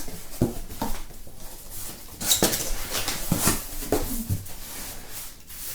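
Cardboard box and packing being opened and handled: irregular scrapes, rustles and knocks.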